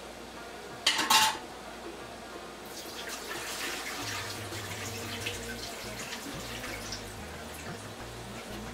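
Large pot of water at a rolling boil, for cooking rice, bubbling with a dense crackle that gets louder about three seconds in. A brief metal clatter of utensil or pot sounds about a second in.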